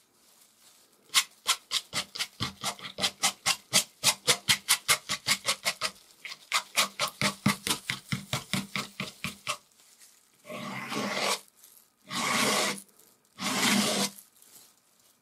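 Palette knife working thick oil paint. A run of quick, short dabbing strokes, about four or five a second, is followed by three longer scraping strokes of about a second each.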